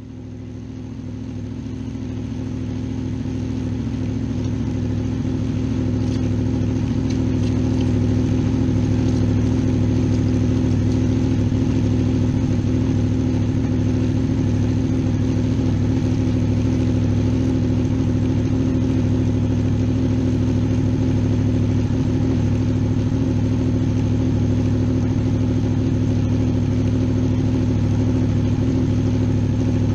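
Honda VFR800's V4 engine idling in first gear on the center stand, driving the rear wheel and chain. It grows louder over the first several seconds, then runs steadily.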